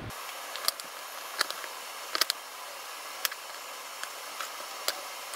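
Kitchen knife cutting up a smoked chicken on a wooden cutting board: a few short, sharp clicks and cracks as the blade goes through the crisp skin and joints and meets the board, over a steady hiss.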